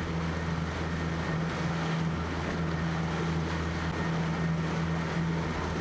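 Motorboat engine running steadily at speed, a low even drone, under wind on the microphone and rushing water from the wake.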